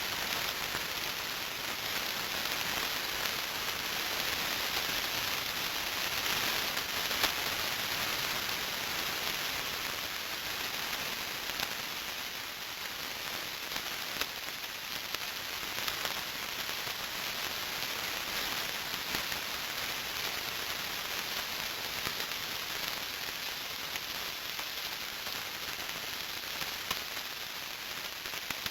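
Radio static: a steady hiss peppered with scattered crackles and pops, swelling slightly a few seconds in and then easing back.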